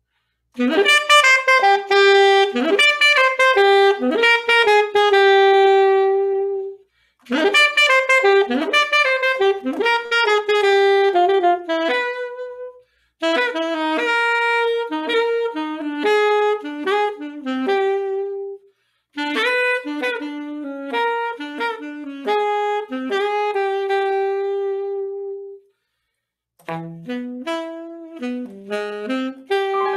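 Unaccompanied saxophone playing melodic phrases with short pauses between them. Each phrase ends on a long held note, and a quicker run of notes starts near the end.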